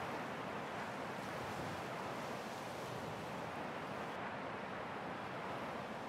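Ocean surf washing onto a beach, a steady rush of breaking water with no separate wave crashes standing out.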